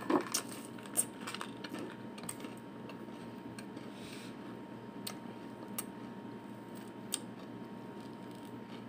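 Faint scattered clicks and crackles of eating fruit: chewing and tearing orange peel by hand, over a steady low hiss. The clicks come most often in the first second or so, then a few more spread out later.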